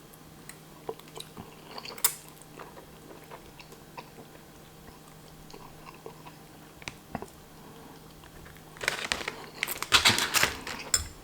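A person chewing a mouthful of spicy instant noodles, with small wet mouth clicks, then a louder stretch of eating noises in the last two seconds.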